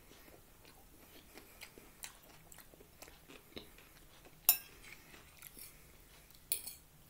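Close-up chewing of a mouthful of chicken fajita, with many small wet mouth clicks. A metal fork clinks against the plate twice in the second half, the first clink the loudest sound.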